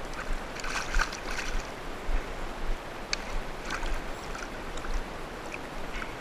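Steady rush of a shallow creek's flowing water, with a few short splashes and knocks as a trout is handled in a landing net held in the stream.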